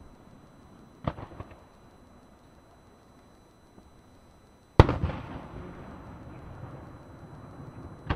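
Aerial fireworks shells bursting. A quick run of three or four cracks comes about a second in, then one heavy boom just before five seconds with a long rumbling tail, and more cracks right at the end.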